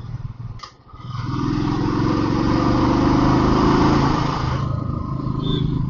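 Royal Enfield Thunderbird 350 Twinspark's single-cylinder engine running steadily on the move. A loud rushing noise builds over it about a second in and stops abruptly near the end.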